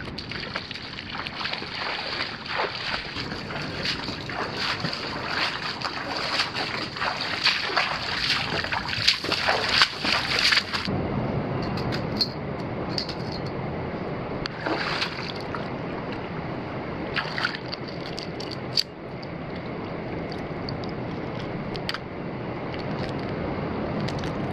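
Boots wading through shallow water, splashing with each step, for about the first eleven seconds. Then a sudden cut to a steady wash of wind and lapping water, with occasional sharp clicks and scrapes as mussels are pulled off the rocks.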